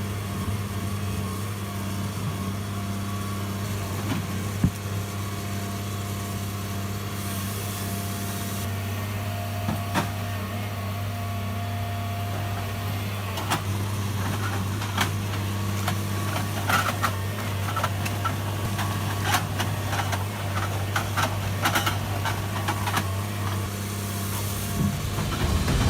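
Heavy forestry machine's diesel engine running steadily at a constant pitch. From about halfway through, sharp knocks and clanks come more often.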